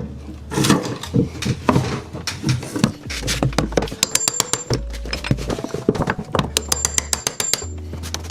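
Background music with a beat: repeated bass notes and quick, evenly spaced percussion ticks, with irregular knocks in the first few seconds.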